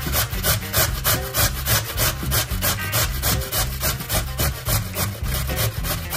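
Raw potato being grated on the coarse holes of a stainless steel box grater: a rhythmic rasping scrape, about four to five strokes a second.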